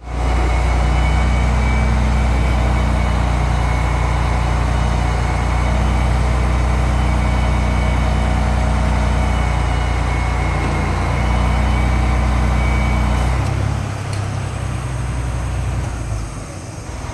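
A large engine running steadily with a deep hum; about thirteen seconds in its sound changes and drops in level.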